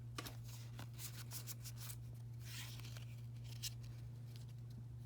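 Faint rustling, crinkling and clicking of a foil Pokémon card booster pack being torn open and the cards inside handled, with a slightly louder tearing rustle about two and a half seconds in, over a steady low hum.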